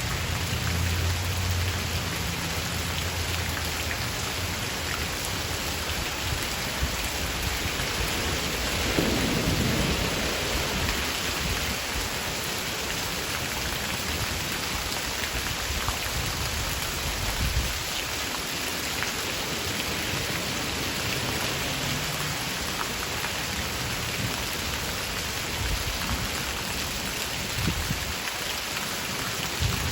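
Steady rain shower falling, with low rumbles of thunder underneath. The thunder is heaviest at the very start and swells again briefly about nine seconds in.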